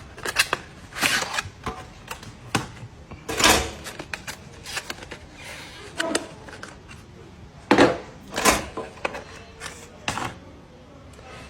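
Irregular clicks, taps and knocks of desktop PC hardware being handled, with sharper knocks about three and a half seconds in and again near eight seconds.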